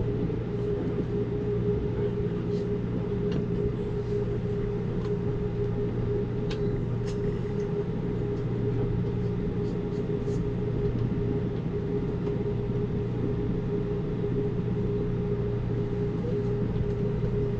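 Amtrak Cascades passenger train running, heard on board: a steady rumble and hum, with a few light clicks.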